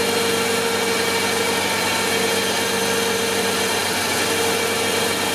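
Mazda RX-8's two-rotor Wankel rotary engine idling steadily, just after its first start following an engine rebuild.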